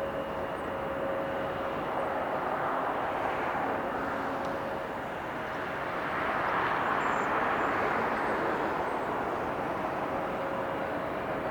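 Jet airliner passing, a steady rushing roar that swells to its loudest about six to nine seconds in and then eases, with a faint steady whine underneath.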